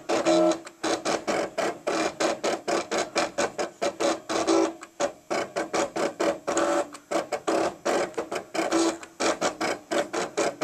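Cricut Expression electronic die-cutting machine cutting a shape from paper, set to maximum speed and pressure: its stepper motors whir in rapid stuttering pulses, several a second, as the blade carriage and mat rollers move in short steps.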